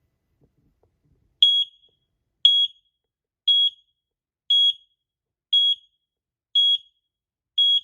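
X-Sense XP01-W combination smoke and carbon monoxide alarm sounding in a test: seven short, high-pitched beeps, evenly spaced about a second apart, beginning about a second and a half in.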